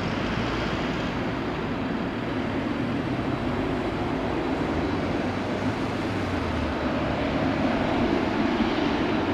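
Airbus A380-841's four Rolls-Royce Trent 970 turbofans at takeoff thrust as the airliner lifts off and climbs away: a steady jet rumble that grows slightly louder toward the end.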